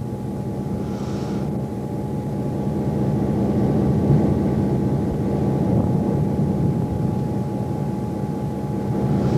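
Diesel locomotive engine running steadily, a low drone with a faint steady whine above it. A brief soft hiss comes about a second in.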